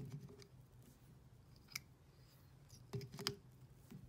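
A handful of faint clicks and taps from hands handling tying thread and a bobbin at a lure-tying vise, two of them close together near the end, over a low steady hum.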